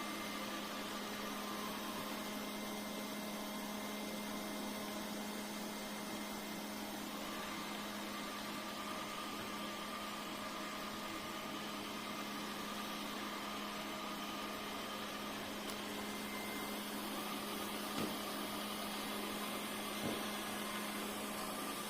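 Steady machine hum with a constant low drone and a fainter whine above it, with two small clicks near the end.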